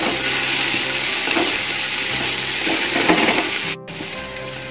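Carrots, beans and spring onions sizzling in hot oil in an aluminium pot, stirred and scraped around with a slotted spatula in a few strokes. The sound briefly cuts out about three-quarters of the way through and is quieter afterwards.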